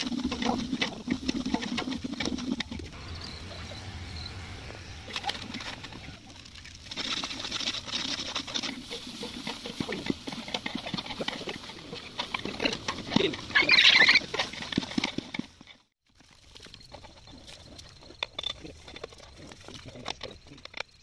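Clatter and scraping of a long metal ladle stirring food in a large aluminium cooking pot, irregular small knocks and scrapes, with one brief louder burst about two-thirds of the way through. The sound cuts out suddenly for a moment about three-quarters through, then the softer clatter goes on.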